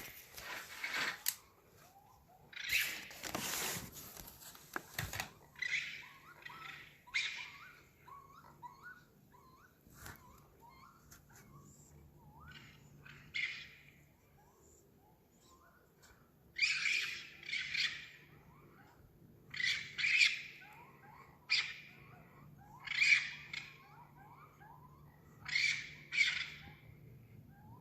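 An unidentified animal, or several, screeching harshly and repeatedly, with quieter short chirps in between. A long screech comes a few seconds in; in the second half the screeches are shorter and come every second or two.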